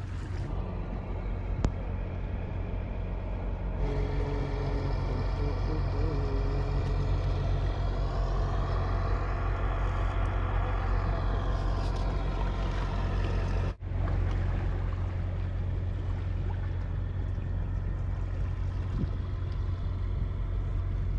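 A steady low rumble, with a distant engine swelling and fading in the middle, its pitch rising then falling. The sound drops out for an instant about 14 seconds in.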